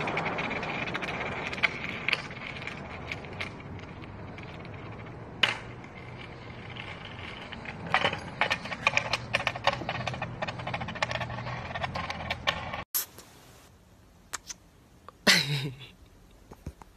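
Skateboard wheels rolling over concrete, a steady rumble with scattered clicks and rattles that crowd together in the later seconds. It stops abruptly; after that, a quieter stretch holds one loud short sound that falls in pitch.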